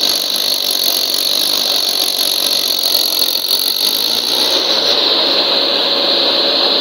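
Mahindra tractor's diesel engine running hard and steady under heavy load, dragging a trolley of wet sand up out of the pit with its front wheels lifting.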